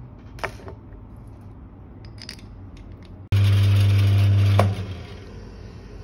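A few light clicks and knocks as the grinder's dial and parts are handled. Then a Mahlkönig EK43 S coffee grinder's motor switches on with a loud, steady hum, runs for about a second and a half, and winds down.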